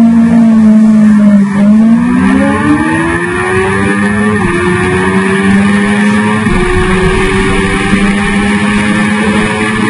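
2005 Suzuki GSX-R1000's inline-four engine at full throttle on a drag-strip launch, its pitch climbing as it pulls through the gears. It drops briefly at each upshift, around four and six and a half seconds in.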